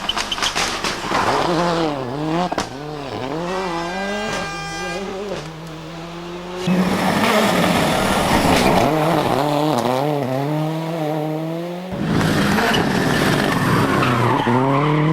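Toyota Corolla WRC's turbocharged four-cylinder 3S-GTE rally engine revving hard, its pitch climbing and dropping again and again through gear changes and throttle lifts. The sound jumps louder suddenly about seven seconds in and again about twelve seconds in.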